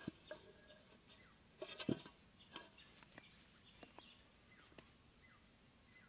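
Quiet handling sounds: a few light knocks and scuffs as an aluminium cooking pot is set down on sandy ground and green stems are pushed into the sand, the loudest a dull thump about two seconds in. Faint short bird chirps in the background.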